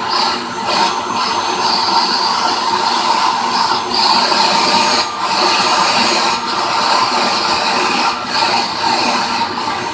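Vacuum cleaner running with its crevice nozzle, a steady motor whine under rushing suction whose hiss strengthens and dips several times as the nozzle is moved.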